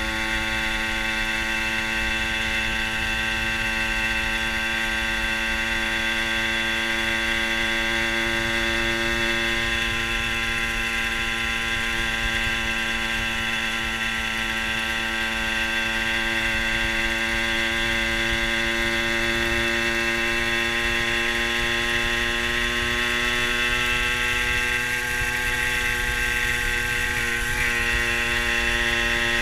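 Fantic TI sports moped's 50cc two-stroke engine running steadily at cruising speed, picked up from on board, its pitch creeping slightly higher near the end, over a low wind rumble.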